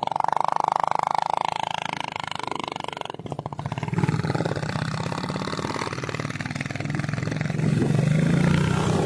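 Motorcycle engine running under way, heard from on the bike, a steady drone with fast pulsing. It dips briefly about three seconds in, then picks up again, the low note strongest near the end.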